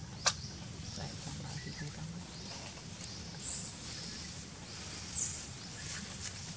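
Outdoor ambience with a faint low voice murmuring in the first two seconds and a sharp click just after the start. Two short high chirps come later, one in the middle and one near the end.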